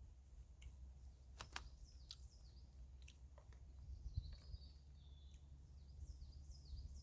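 Quiet woodland with faint birdsong: scattered high chirps and short sliding notes over a steady low rumble, with two sharp clicks about one and a half seconds in.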